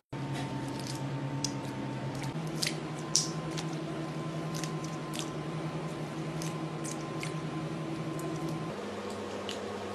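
Wet squelching and small crackles as raw small fish are gutted and torn open by hand, over a steady low hum.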